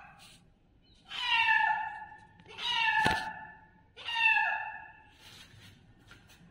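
A kitten mewing three times, high-pitched calls of about a second each that drop in pitch at the end. There is a sharp click during the second mew.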